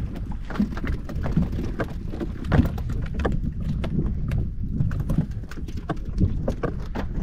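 Irregular knocks and taps on a small fishing boat, several a second, over a steady low rumble of wind and water.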